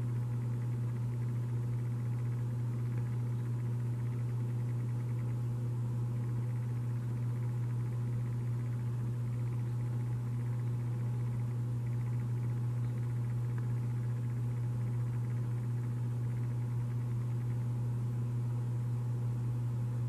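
A steady low hum with a faint hiss above it.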